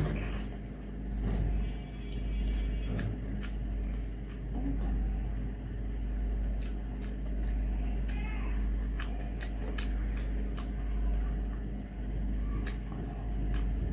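Fingers mixing rice and curry on a steel plate: small wet squishes and scattered light clicks against the plate, over a steady low rumble.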